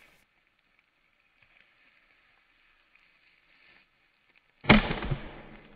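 An axe strikes and splits a firewood log: one sudden heavy blow about four and a half seconds in, its noise trailing off over about a second. Before it there is only a faint steady hiss.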